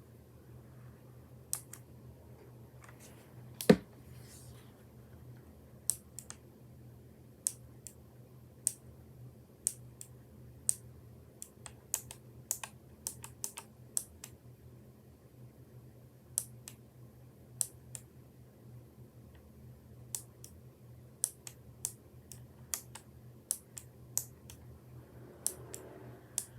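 Keychron K1 low-profile mechanical keyboard with clicky blue switches, keys pressed one at a time at a slow, uneven pace, each giving a sharp click. One much louder knock comes about four seconds in.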